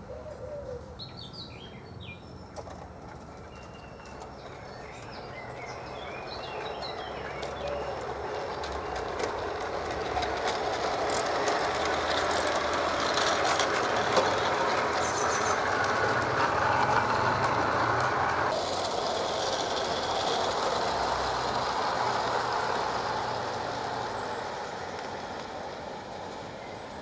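Gauge 1 model goods train running on garden railway track: the wheels rumble and click over the rails, building up as the wagons pass close by about halfway through, then fading away. Birds chirp in the first few seconds.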